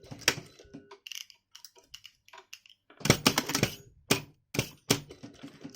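Irregular sharp clicks and knocks, in a few quick clusters, from handling tools and fabric on a sewing work table.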